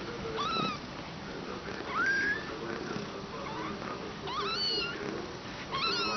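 Newborn kittens, two days old, mewing: thin, high cries that rise in pitch, a handful of them, bunched near the end. They are jostling for the mother's milk.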